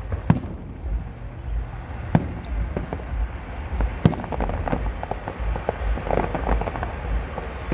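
Fireworks going off: single sharp bangs about two seconds apart, then a cluster of crackling near the end.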